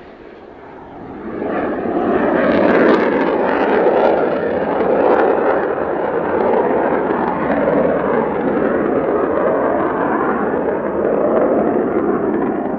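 Mitsubishi F-2 fighter's single F110 turbofan at full power with afterburner lit as the jet pulls up and climbs away. The loud jet noise swells sharply about a second in, then holds as a steady, crackling noise.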